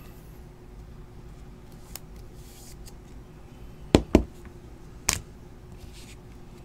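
Hands handling a hard clear-plastic card toploader and trading cards: a soft rustle, then two sharp plastic clicks close together about four seconds in and a third a second later, over a steady faint hum.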